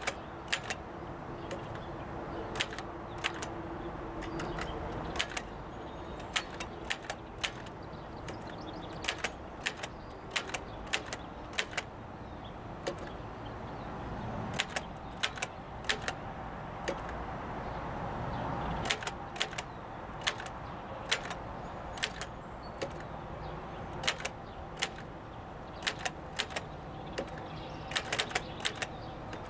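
Typing on a Remington Standard 12 manual typewriter: sharp, irregular keystroke clacks, one to three a second and sometimes in quick runs, over steady background noise.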